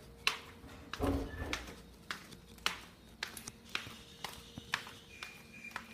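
Footsteps on hard tiled stairs and floor, about two sharp steps a second, with a low thump about a second in.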